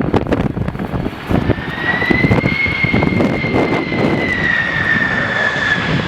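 Jet airliner's engines whining, the pitch rising a little and then sinking slowly, over heavy gusty rumble and crackle from strong wind buffeting the microphone.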